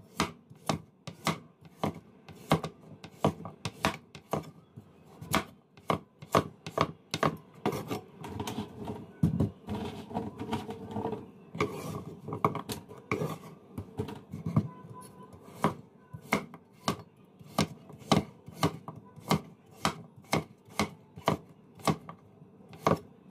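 Steel cleaver chopping peeled pumpkin into bite-size cubes on a wooden cutting board: a long string of sharp knocks as the blade goes through the flesh and hits the board, about one or two a second, unevenly spaced.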